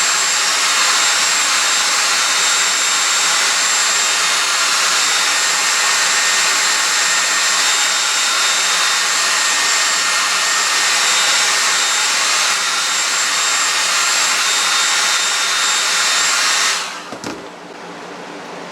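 Hair dryer blowing steadily, warming tape adhesive so it can be peeled off paper, with a faint high whine in its rush of air; it is switched off near the end, followed by a brief knock.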